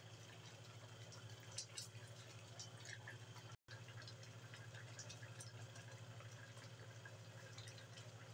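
Coconut-milk stew simmering in an aluminium wok on a gas burner: faint bubbling with many small pops and ticks over a steady low hum. The sound breaks off for an instant a little before halfway.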